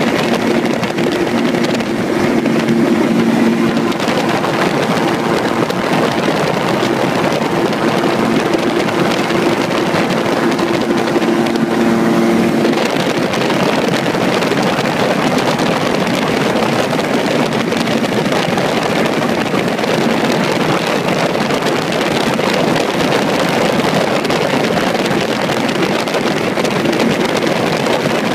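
Gyrocopter in flight: steady, loud engine drone mixed with wind rushing over the microphone. A steady hum in the engine note drops out about halfway through, leaving the even engine-and-wind noise.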